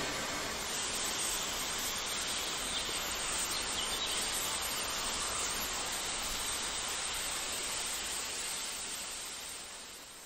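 Steady hissing outdoor ambience recorded at a steam railway, fading out over the last couple of seconds.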